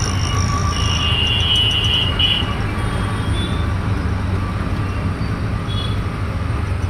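Auto-rickshaw running in city traffic, its engine a steady low hum under road noise. About a second in, a high steady tone sounds for about a second and a half.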